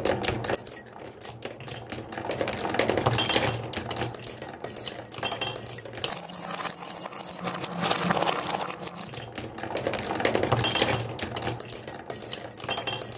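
Marbles rolling and rattling down a wooden marble run track: a fast stream of small clicks and clatters, with short ringing clinks here and there.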